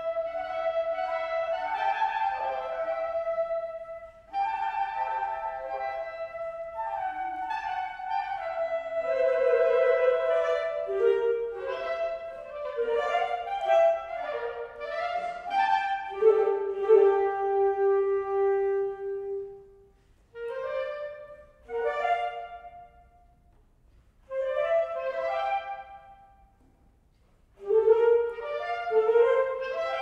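Woodwind ensemble of flutes, clarinets, bass clarinet, saxophones and bassoons playing. Long, flowing melodic lines give way about two-thirds through to short separate phrases with brief pauses between them.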